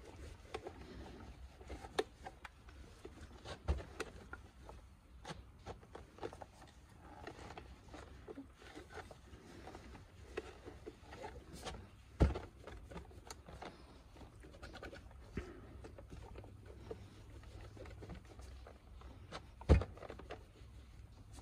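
Microfiber towel rubbing over the glossy plastic housing of a Hyundai Palisade side mirror, a soft irregular wiping sound with scattered light clicks. A few sharp knocks stand out, the loudest about twelve seconds in and another near the end.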